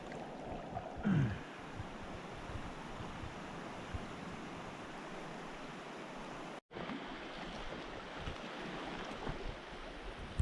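Steady rushing of a clear mountain stream flowing over rocks. A short low falling sound about a second in, and the sound cuts out for an instant past the middle.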